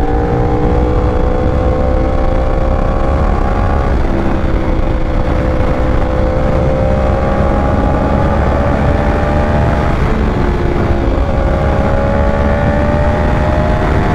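Yamaha R1's crossplane inline-four running through an Austin Racing titanium exhaust under acceleration at highway speed. The pitch climbs slowly and drops back at gear changes about 4 seconds in and again around 10 seconds. Heavy wind rush on the microphone runs underneath.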